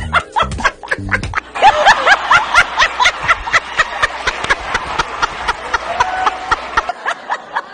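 A woman laughing loudly in rapid, repeated pulses, over background music.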